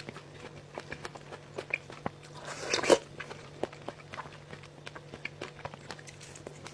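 Close-up eating sounds: crisp bites and chewing, heard as many small clicks and crunches. A louder rushing sound builds and stops sharply about three seconds in.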